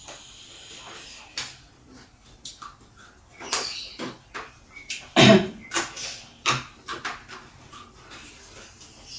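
Close-miked rustling and snapping of raw leafy greens being handled and picked apart by hand, in scattered crackles. There is one louder rustle about five seconds in.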